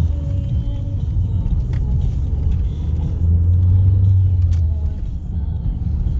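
Cabin sound of a turbocharged Saab 9000 driving: a steady low engine drone with road noise, swelling a little around the middle.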